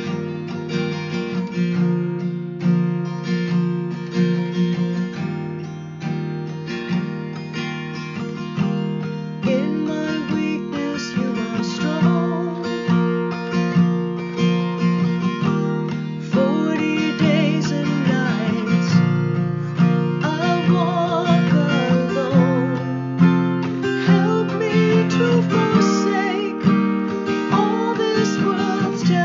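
Acoustic guitar strumming sustained chords, with a wavering melody line coming in above it about ten seconds in.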